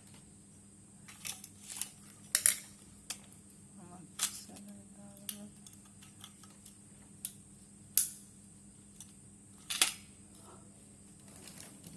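Sharp, irregular clicks and taps, about ten in all, from small tools and parts being handled during the power supply repair. A faint steady hum runs underneath.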